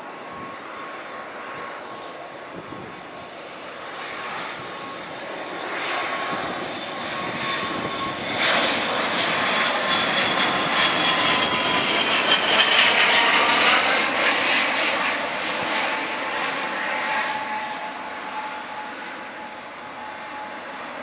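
ATR 72 twin-turboprop airliner on landing approach passing low overhead: the engine and propeller drone swells to a peak about halfway through and fades, its whining tones dropping in pitch as it goes past.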